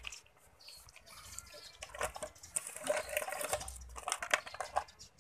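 Hollow plastic toy fruits and vegetables clicking and knocking against each other and against a plastic shelf rack as they are picked up and set down: scattered light taps, busier in the second half.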